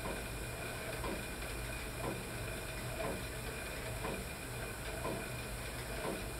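Friction-braked cycle ergometer being pedalled at a steady pace: a steady hiss from the braked flywheel, with a faint tick about once a second.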